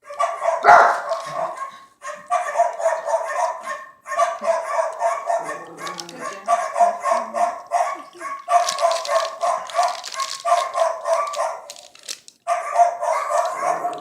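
Recorded cat yowling sound effects played through a phone speaker. They come in repeated stretches of about two seconds, each a steady pulsing cry, with short breaks between them.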